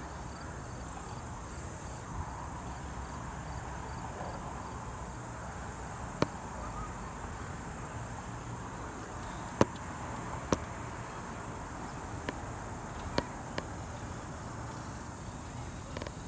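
Quiet outdoor ambience on a moving chairlift: a steady low rumble with insects chirping faintly, broken by a handful of sharp clicks.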